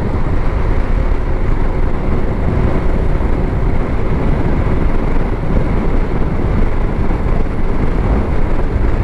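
Steady wind rush on the microphone, mixed with the engine and road noise of a TVS scooter ridden at speed along a highway.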